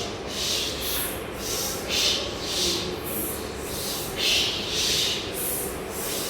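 A man hissing the bare consonants 'sh' and 's' in alternating pairs of short hisses, about two a second. The 'sh' is the lower hiss and the 's' the sharper, higher one, demonstrating the difference between the two sounds.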